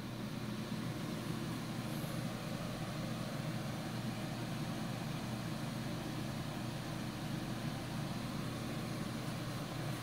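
Pelonis Safe-T-Furnace ceramic disc space heater running: its blower fan gives a steady rush of air over a low motor hum.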